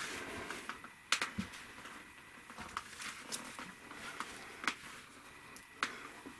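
Quilt backing fabric and batting being shifted and smoothed by hand: faint rustling and brushing, with a few light clicks and taps scattered through it.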